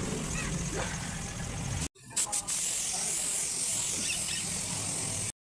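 A cloth rubbing over a tractor tyre and its freshly painted rim, a wavering hiss. A low hum runs under the first two seconds, and a couple of sharp knocks come just after it stops.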